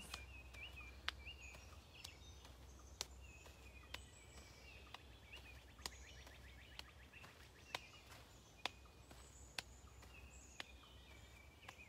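Soft taps about once a second, hands striking the opposite knees while marching in place, with faint birdsong chirping in the background.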